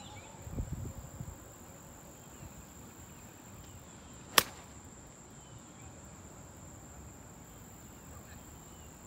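Golf club striking the ball once on a short approach shot: a single sharp click about four seconds in, over a steady high-pitched hum.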